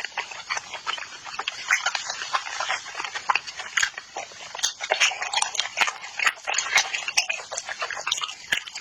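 Close-miked eating of spicy chicken: wet chewing and lip smacking, a quick irregular run of clicks and smacks.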